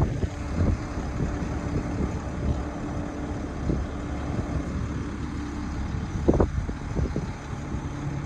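Engine of a 2003 International 4300 bucket truck running steadily, with a hum that drops in pitch about six seconds in. Wind buffets the microphone.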